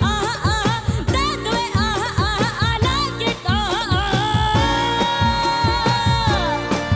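A woman singing a retro Hindi song with live band backing. She makes quick, ornamented turns on the melody, then holds one long high note that slides down near the end, over a steady beat.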